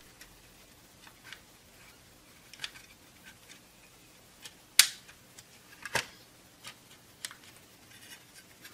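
Scattered light clicks and taps of a multimeter's circuit board and plastic case being handled and pressed together, the sharpest click about five seconds in and another about a second later.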